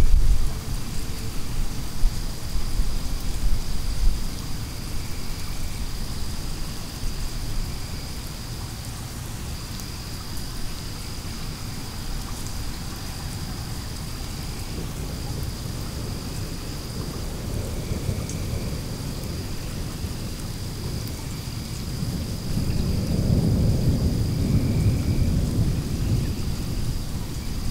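Thunder rumbling in a thunderstorm over steady rain. There is a rumble in the first few seconds and a longer, louder rolling rumble starting about 22 seconds in.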